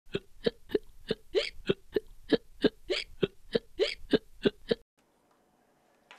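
A person's voice rapidly repeating one short, clipped syllable, about three a second, trying to say "hiccups" backwards as fast as possible. It cuts off suddenly a little before five seconds in.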